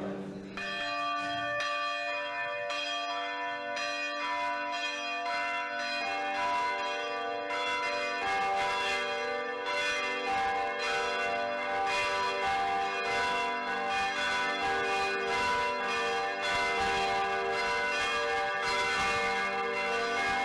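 Church bells ringing, struck over and over in quick succession so that their tones overlap. More strokes and lower notes join in from about six seconds in.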